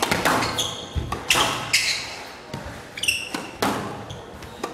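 Squash rally: a steady run of sharp racket hits and the ball smacking the court walls, roughly one to two a second, with short high squeaks from the players' shoes on the court floor.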